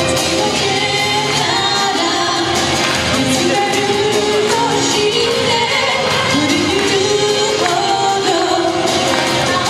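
A song: a singing voice holding and sliding between notes over loud, full instrumental backing.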